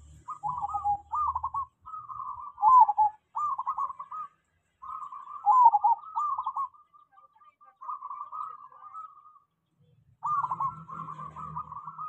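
Zebra dove (perkutut) singing its cooing song: a long run of rapid, rolling coo phrases one after another, pausing for about a second near the end before starting again. This is the sustained 'ngelos' singing the bird has been trained for.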